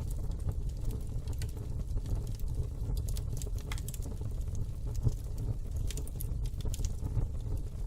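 Fireplace fire crackling: irregular sharp crackles and small pops over a low steady rumble, with one louder pop about five seconds in.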